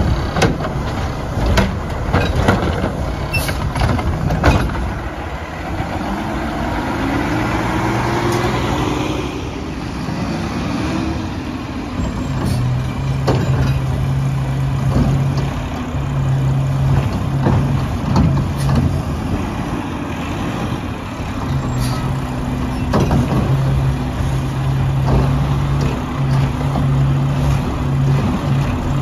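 Mack LR garbage truck at work on a cart route: a few sharp clanks and knocks, then the engine revving up, rising in pitch, as it drives the lift arm's hydraulics. After that comes a steady low engine hum that breaks off and picks up again several times.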